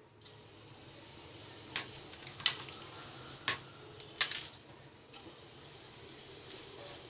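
Whole cumin seeds sizzling in hot mustard oil in a frying pan. A steady hiss starts as the seeds hit the oil and goes on, with scattered sharp pops and crackles.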